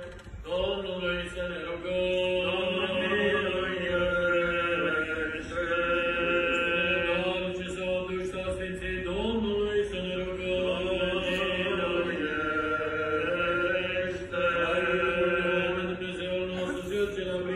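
Orthodox liturgical chant: voices singing slow, long-held notes that step from pitch to pitch.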